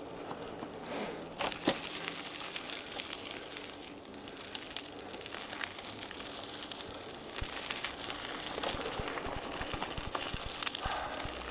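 Bicycle riding over a dirt woodland trail: tyre noise on the ground with scattered clicks and knocks of the bike jolting over the rough surface.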